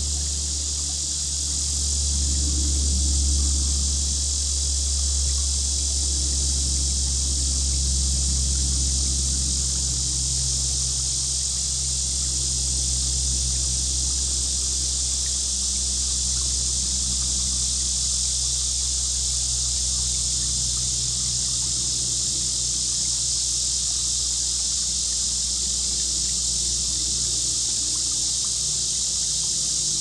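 Steady, unbroken high-pitched chorus of crickets and other insects, with a low steady rumble underneath.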